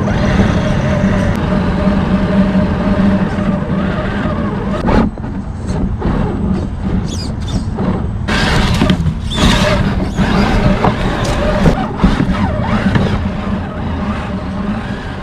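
Redcat Gen8 radio-controlled crawler truck driving: its electric motor and gears run steadily, then give way to irregular scraping and crunching as it works over rough ground.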